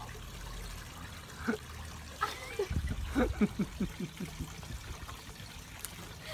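Water trickling and splashing in an above-ground pool, fed by the pool's return jet. About halfway through comes a quick run of short squeaks, each falling in pitch.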